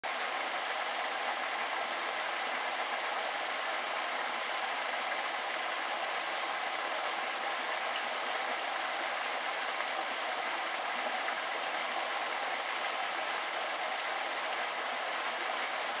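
Small woodland stream running: a steady, even rush of flowing water.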